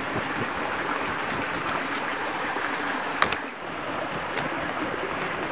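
River water rushing steadily, with a single sharp knock about three seconds in.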